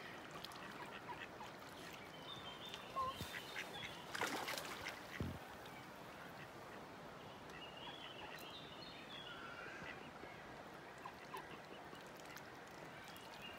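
Mallard ducks calling in a few short spells over the faint steady wash of a shallow stream.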